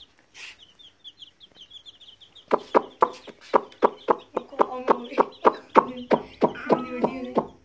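Baby chicks peeping faintly in short, high calls, then, from about two and a half seconds in, a hen clucking loudly and rapidly, about four clucks a second.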